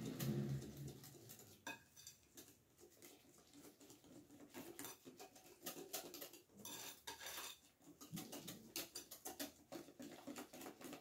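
A hand whisk beating cake batter in a glass mixing bowl. The wire gives quick, irregular clicks and taps against the glass.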